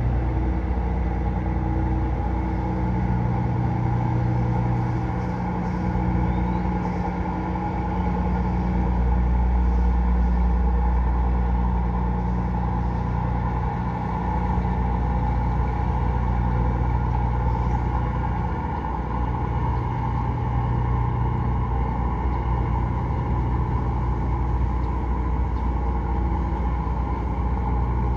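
A boat engine running steadily on the river: a continuous low drone with a few even hum tones over a band of mid-pitched engine noise, changing little in level.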